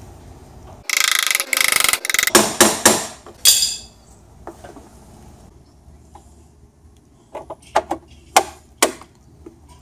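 Hand file scraping the edge of a hole in the bottom of a breaker panel box, widening it to take a conduit adapter. There is about a second of rapid rasping, then several separate strokes, and a few sharp clicks and taps near the end.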